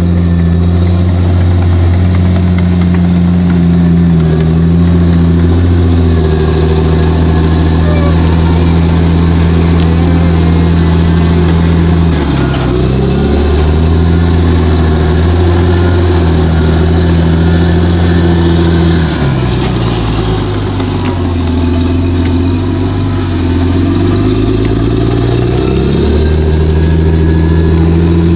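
Komatsu D61 crawler dozer's diesel engine running hard as the blade pushes soil and rocks. Its pitch dips briefly about twelve seconds in, then sags for several seconds later on before picking back up, as the engine is loaded down by the push.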